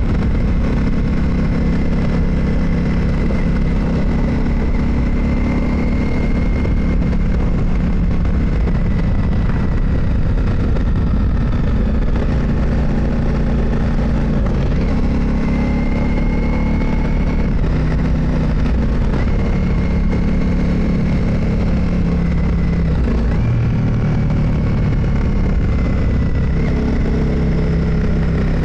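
Motorcycle engine running on the move, its pitch stepping up and down several times, over a steady low rush.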